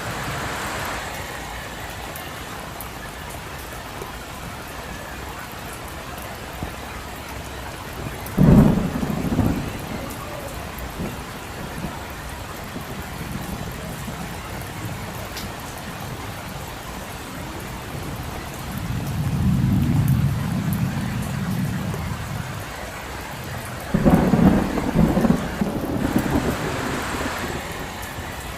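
Steady rain falling, with two sharp thunderclaps that roll into rumbling, one about eight seconds in and one near the end. A lower, smoother rumble swells and fades in between.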